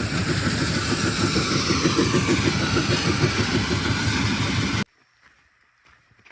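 Heavy diesel engine running with a fast low throb, cutting off suddenly just before five seconds in; faint scattered ticks follow.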